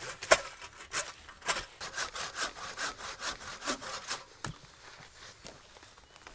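Hand saw cutting through a wooden branch, rasping back and forth at about two strokes a second, stopping about four and a half seconds in.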